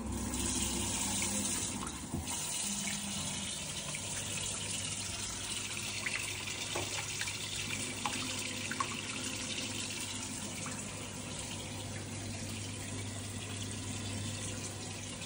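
Water running steadily from a tap into a sink, with a steady low hum underneath from about four seconds in.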